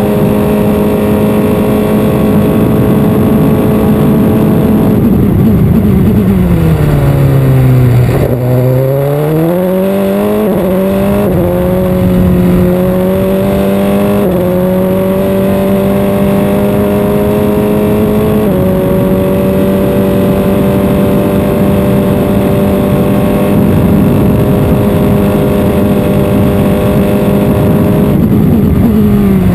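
Open-wheel single-seater race car's engine, heard onboard, running at steady high revs, then dropping in pitch about five seconds in as the car brakes and shifts down for a corner. It climbs back with several quick upshifts, holds steady at speed, and drops again near the end.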